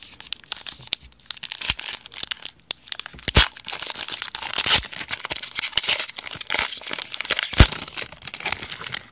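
Silver foil wrapper of a Panini Phoenix football card pack being torn open and crinkled in the hands, with irregular crackling and two louder sharp snaps, one about three seconds in and one near the end.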